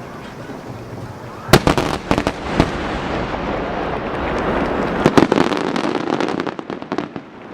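Aerial firework shells bursting: a loud boom about a second and a half in, then a run of sharp crackling reports, and another dense run of crackles around five to six seconds in.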